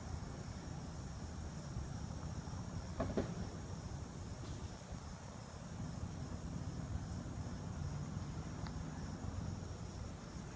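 Insects chirring steadily in a high pitch over a low, steady rumble of distant road traffic, with one short pitched sound about three seconds in.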